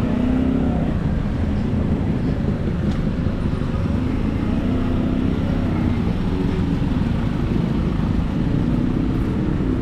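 Road traffic in a busy street: the engines of cars, vans and motorcycles running and passing close by, a steady rumble.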